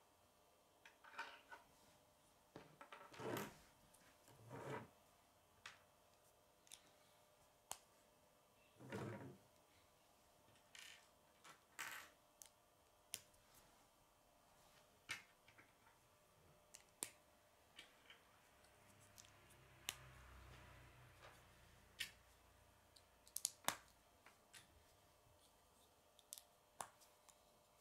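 Plastic K'nex rods and connectors clicking and tapping as they are handled and snapped together, a few dozen faint, irregular clicks with a handful of louder ones.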